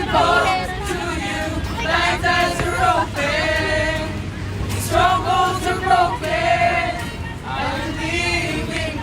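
A group of voices singing a worship song together in long held phrases, with short breaks between them.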